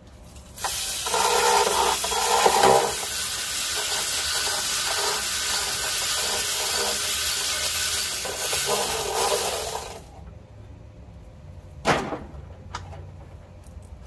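A loud, steady rushing hiss that starts about half a second in, runs for about nine seconds and cuts off suddenly, followed by a single sharp knock about two seconds later.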